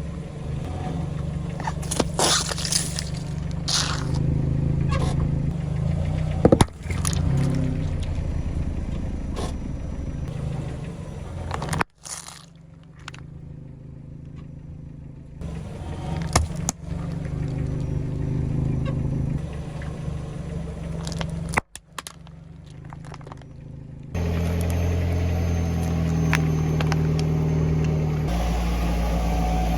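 A car engine running slowly as its tyres roll over and crush objects, with crackling, scraping and several sharp cracks and pops. The sound changes abruptly a few times.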